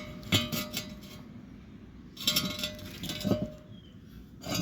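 A few light metallic clinks and knocks as steel parts are handled, some leaving a brief ringing tone.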